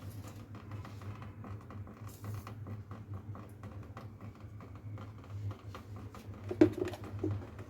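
Irregular light taps and clicks, with a steady low hum underneath; one louder click about six and a half seconds in.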